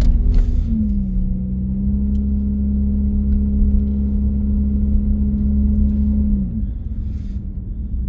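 Car engine and road rumble heard from inside the cabin while driving: a steady engine drone over low rumble. The drone dips slightly in pitch about a second in, then falls away about six and a half seconds in as the engine eases off.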